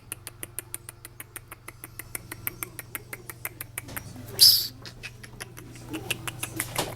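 Miniature dachshund puppies giving faint high squeaks. Under them runs a steady rapid ticking of about five or six clicks a second, and there is one short loud hiss about halfway through.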